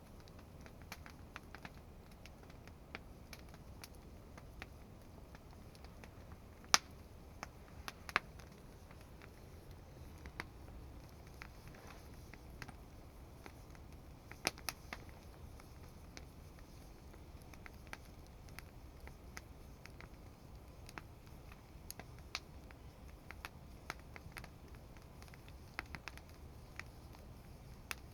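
Wood fire crackling: sparse, irregular sharp snaps and pops over a faint low rumble, with a few louder pops, the loudest about seven seconds in.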